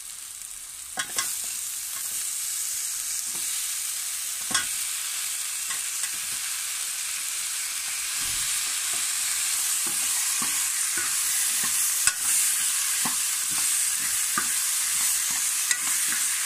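Potato cubes frying in a kadhai of onion-tomato masala, a steady sizzling hiss, while a steel ladle scrapes and clinks against the pan as they are stirred in. The sizzle grows louder and the ladle strokes come quickly from about halfway.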